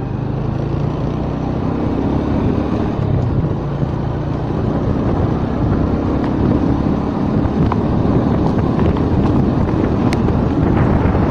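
Small motor scooter engine running steadily while riding along a road, with rushing wind noise that grows near the end.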